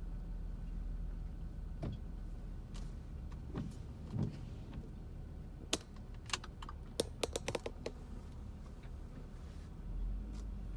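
Inside a car's cabin, rolling slowly: a steady low engine rumble, with a quick, irregular run of light clicks and taps a little past halfway.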